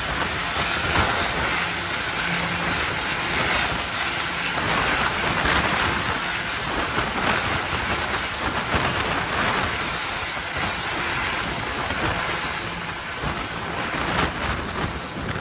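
Engines of a small twin-engine turboprop airplane running with a steady, loud rushing noise before takeoff.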